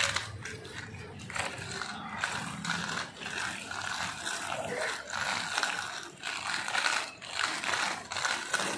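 Small plastic wheels of children's roller skates and a skateboard rattling and scraping over a rough cement road. The clatter is uneven and continuous, with brief dips.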